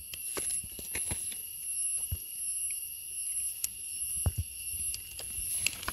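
Steady high-pitched insect chorus, a continuous shrill drone, with scattered light clicks and knocks throughout.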